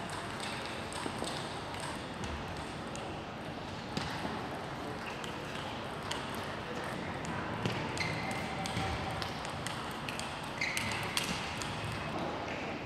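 Table tennis rallies: the ball clicks sharply off the table and the players' bats in quick exchanges, with short pauses between points.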